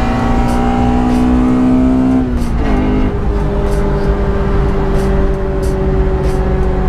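Honda Civic's B16A1 1.6-litre VTEC four-cylinder engine, heard from inside the cabin, revving up under acceleration. Its pitch drops sharply about two and a half seconds in at a gear change, then it pulls on at a steady note.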